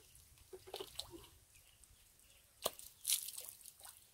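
Faint water drips and small splashes: a few light ones about a second in, a sharp tick about two and a half seconds in, and a brief splashing rush just after.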